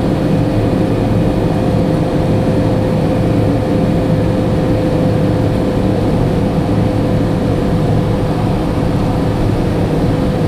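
A car travelling at expressway speed: steady tyre and engine noise, with a steady whine running through it.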